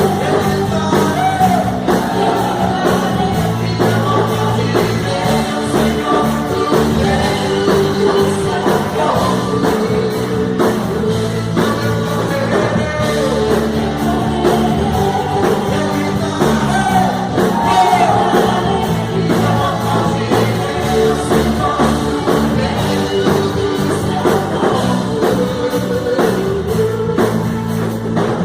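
Live worship band playing an upbeat rock-style song with voices singing over it, the drum kit keeping a steady driving beat on the cymbals.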